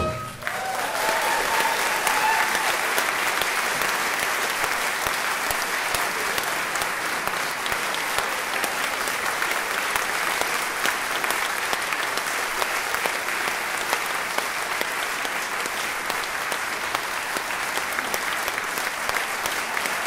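Audience applauding steadily, starting the moment the brass band's final chord cuts off.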